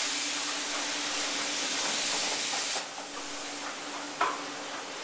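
Car wash's clear-panel high-speed roll-up door closing. A steady hiss with a high whine cuts off after about three seconds, and a single sharp knock follows about a second later, over a low steady machinery hum.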